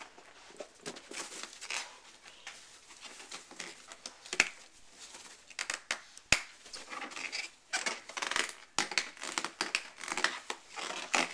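Inflated rubber balloon being pawed and bitten by a Maltese puppy: irregular scratching and rubbing against the rubber and carpet, with sharp taps about four and six seconds in.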